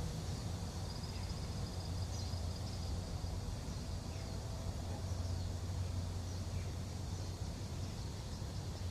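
Outdoor ambience: a steady low hum, with a faint high trill about a second in that fades after a couple of seconds.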